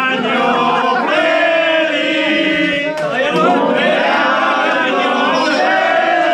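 A group of people singing a toasting chant together, many voices overlapping loudly.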